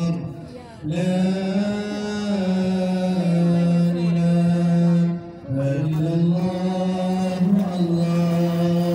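A single voice chanting Islamic devotional words in long, drawn-out melodic phrases, with short breaks for breath about half a second in and about five seconds in.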